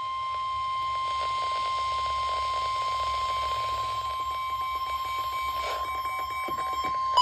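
NOAA Weather Radio 1050 Hz warning alarm tone: a single steady high tone held throughout, heralding a severe thunderstorm warning. It sounds over a hiss of radio interference.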